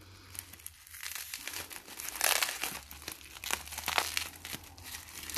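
Plastic bubble wrap and kraft-paper packing crinkling and rustling in irregular bursts as hands lift a small bubble-wrapped plant pot out of a parcel, loudest a little after two seconds and again around four seconds in.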